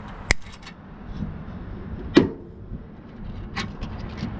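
Diagonal cutters snipping plastic zip ties: a few sharp clicks, the loudest about two seconds in, over a low steady rumble.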